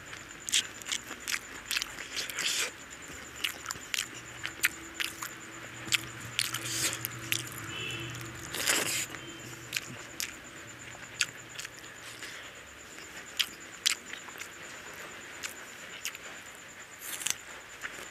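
Close-up eating sounds from eating rice and curry by hand: wet chewing and lip smacks, with fingers mixing rice on the plate. These make irregular sharp clicks and smacks throughout.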